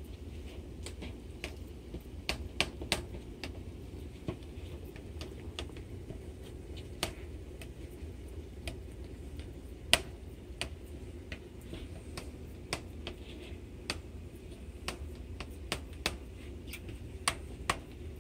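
Silicone spatula knocking and scraping against the sides of a plastic container while stirring and packing damp fruit fly media, giving irregular sharp clicks, the loudest about ten seconds in. A steady low hum runs underneath.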